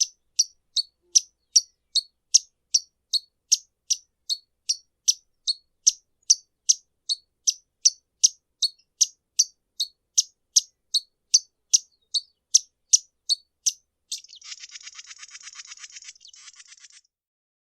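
Violetear hummingbird song: a long run of sharp, high chip notes repeated about two and a half times a second, then a buzzy, rattling trill of about three seconds that stops abruptly.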